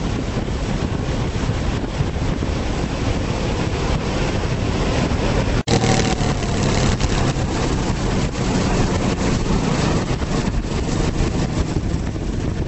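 Wind buffeting the microphone over a motor vehicle's engine running steadily. A split-second gap falls a little before the middle, after which the engine's hum comes through more clearly.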